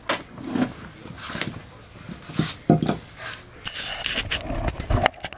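Close handling noise: rustling and a run of irregular knocks and light clatters, with a sharp knock about two and a half seconds in and several more near the end.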